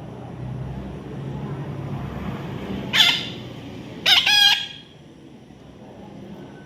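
Parrot squawking twice: a short, loud call about three seconds in, then a longer call about a second later.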